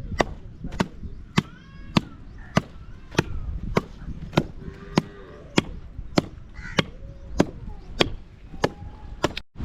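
Steady, evenly paced chopping, one sharp blow about every 0.6 seconds, then a sudden cut just before the end.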